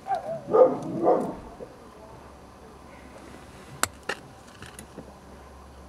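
A dog barking, three short barks in the first second or so. Then two sharp clicks a little before the end.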